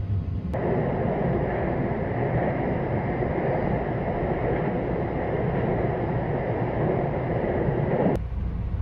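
Sunrise Seto sleeper train crossing a steel truss bridge, heard from inside the carriage: a loud, steady rush of wheel and rail noise that starts suddenly about half a second in and cuts off suddenly near the end, leaving the lower running rumble.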